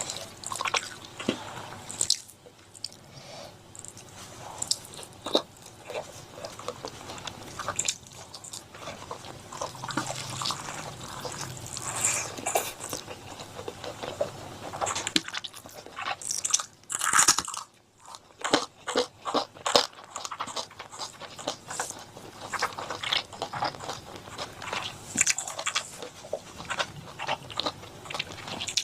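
Close-miked chewing and biting of chicken curry with rice, a steady run of irregular sharp crunches and clicks, with a louder flurry a little past the middle.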